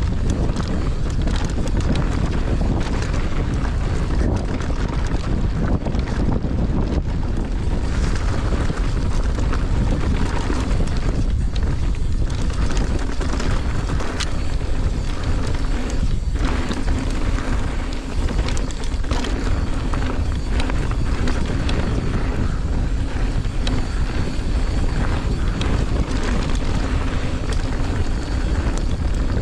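Wind rushing over an action camera's microphone on a mountain-bike descent, with the clatter and rattle of the bike over rough trail. The noise is steady and heavy in the bass, broken by many sharp knocks.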